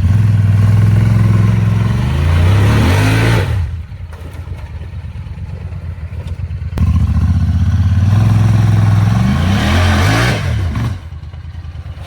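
Off-road vehicle engine revved hard and held at high rpm, its pitch wavering and then falling away as the throttle is let off, about 3.5 s in; it revs up again near 7 s, holds, and drops back to a lower running level about 11 s in.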